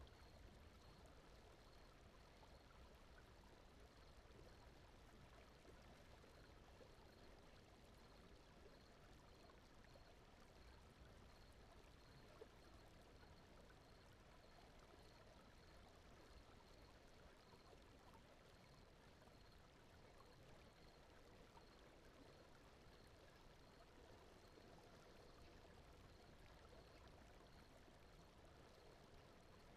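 Faint, steady sleep soundscape of brown noise with gently running stream water, and a faint, evenly repeating high pulse throughout.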